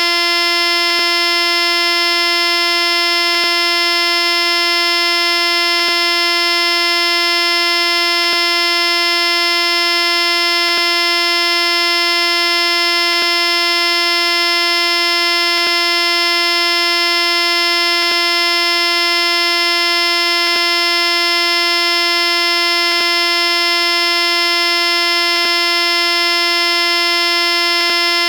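A steady, unchanging buzzing tone at one pitch, rich in overtones. It repeats as a seamless loop with a faint click about every two and a half seconds.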